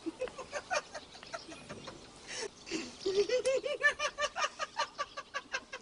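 Domestic fowl calling: scattered short calls, then from about three seconds in a quick, even run of short calls, about five a second.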